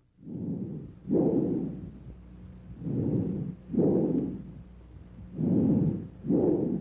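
Bronchial breath sounds heard through a stethoscope: three breath cycles, each a breath in followed, after a short silent gap, by a breath out.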